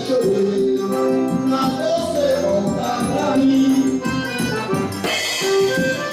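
Live forró band playing: sustained accordion melody over a steady rattling percussion beat.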